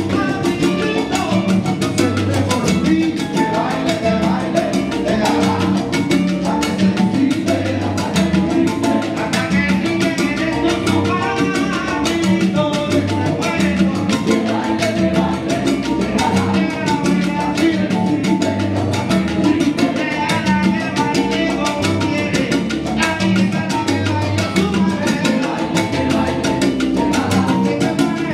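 Live Cuban salsa band playing: congas and timbales keep a steady rhythm under bass and piano, with singers at the microphones. The music is loud and continuous.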